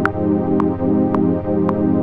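Synthesizer played from a keyboard, holding one sustained chord, with a metronome click ticking about twice a second and louder on every fourth beat.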